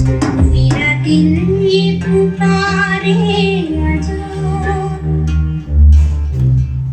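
Hindi song playing through a Mivi Fort Q700D soundbar at high volume, with heavy bass notes under a sung melody.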